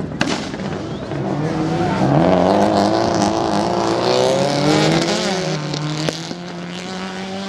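Rally car engine revving hard at speed on a gravel stage, its pitch climbing and dropping several times with gear changes and lifts, then holding steadier near the end, over the hiss of tyres and gravel.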